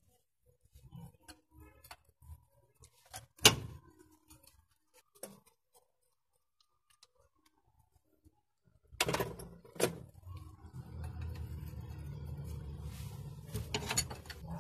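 Scattered sharp metallic clicks and clinks of a wrench and loose metal parts being handled on a diesel engine under repair. One louder clank comes a few seconds in and two more about nine seconds in. After about ten seconds a steady low hum joins them.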